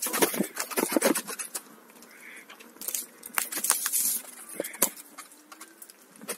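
Irregular knocks, scrapes and rattles as a Kingsong S22 electric unicycle rides down rough dirt steps, jolting the camera. The knocks come thick near the start and again in the middle, with quieter stretches between.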